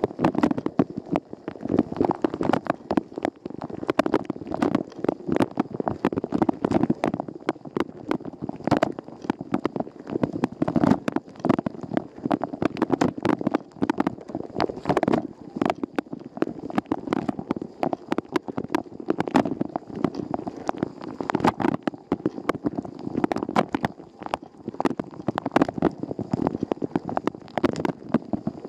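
Water spraying inside a Rosenlew dishwasher during a wash, heard from inside the tub: a continuous dense patter of splashes and spatters.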